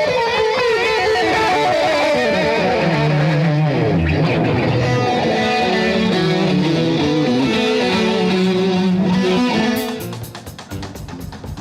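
An electric guitar plays a melodic lead line with bent and wavering notes. Near the end the guitar drops back and a drum kit comes in with fast, even strokes, about five a second.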